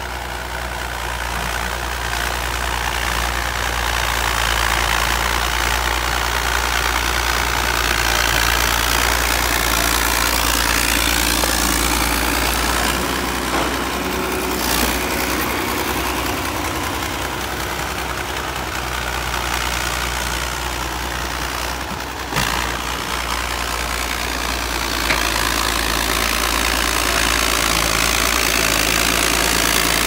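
Crawler bulldozer's diesel engine running steadily as the machine works, pushing soil with its blade. A couple of short sharp knocks come partway through.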